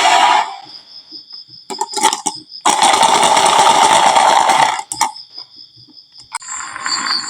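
Marbles rolling down a wooden slope track, a rushing rumble that stops about half a second in, comes back for about two seconds in the middle and starts again near the end. A few sharp clacks fall between the runs, over a steady pulsing high chirp of insects.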